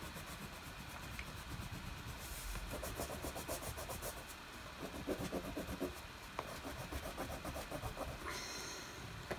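A crayon rubbing back and forth on thick paper, colouring in a shape with quick, even strokes.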